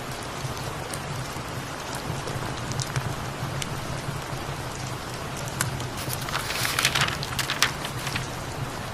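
Steady rain ambience with a low, even purr underneath and scattered small crackles of a fireplace. A louder cluster of crackling and rustling comes about six to eight seconds in.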